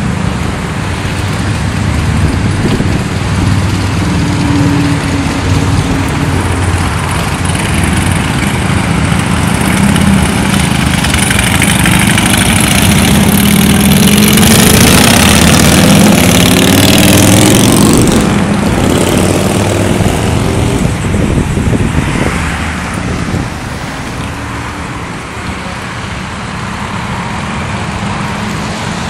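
Motorcycle engines running steadily. Around the middle, a group of motorcycles accelerates away loudly with the engine pitch rising, then the sound drops back and grows quieter near the end.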